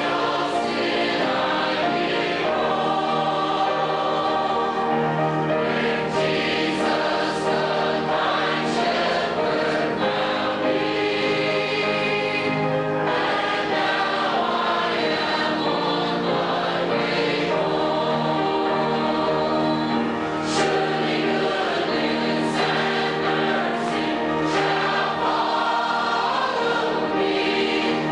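A church choir singing a hymn together, accompanied by an organ.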